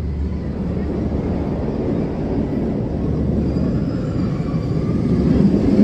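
Steady low rumble of outdoor background noise, growing a little louder near the end.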